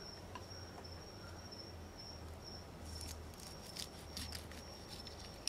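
Crickets chirping in a steady, high, pulsing trill over a low hum. A few faint clicks and scrapes about three seconds in come from a knife beginning to cut behind the fish's gill.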